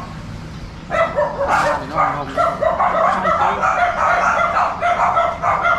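A dog barking quickly, about three barks a second, starting about a second in.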